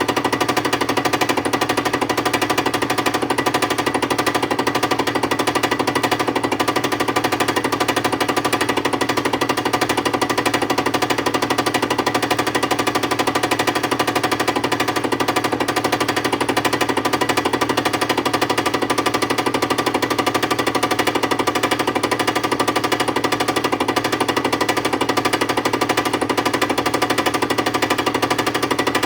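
Milling machine face-milling a metal machine part: the cutter chatters steadily in fast, even strokes.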